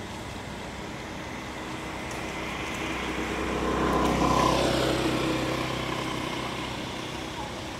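A motor vehicle passing unseen: engine noise rises to a peak about four seconds in, then fades.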